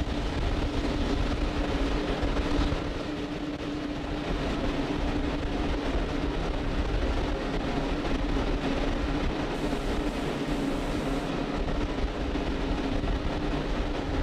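Steady rushing noise and low rumble from a fully fuelled Falcon 9 on the launch pad as it vents liquid-oxygen vapour before startup, with a steady hum under it.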